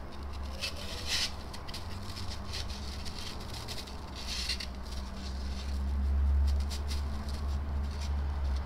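Light paper rustling and scratching as a paper template is handled and laid flat on a polyurethane foam block, over a steady low hum that swells about six seconds in.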